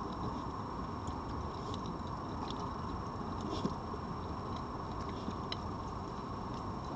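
Red foxes eating from plates of meat close to the microphone: faint irregular clicks and ticks of chewing and picking at food over a steady low hiss, with one slightly louder knock a little past halfway.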